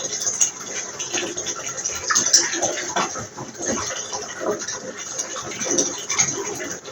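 Water running into a bath, splashing and gurgling unevenly.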